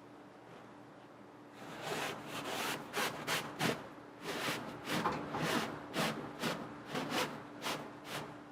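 Cloth headliner fabric being rubbed and handled: a run of short, uneven scraping rustles, about two a second, that starts a second and a half in and stops near the end.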